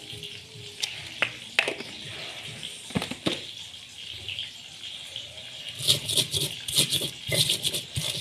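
Stone mortar and pestle: a few scattered clicks as raw shallots and garlic go into the mortar, then from about six seconds in, quick irregular knocks and scrapes of the stone pestle crushing them against the stone bowl.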